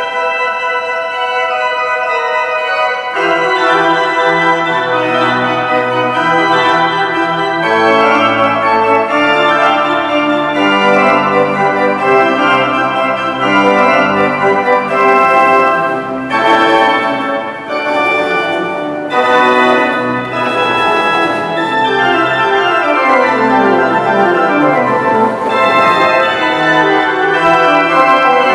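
Walcker pipe organ playing sustained full chords. Low pedal bass notes come in about three seconds in, and near the end descending runs move down through the lower notes.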